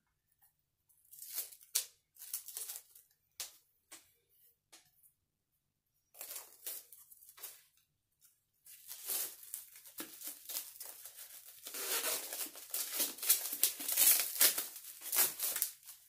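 Thin plastic bags crinkling and rustling as they are handled and pulled out of a cardboard tube. The sound comes in short scattered bursts at first, then turns into continuous crinkling that is loudest in the last few seconds.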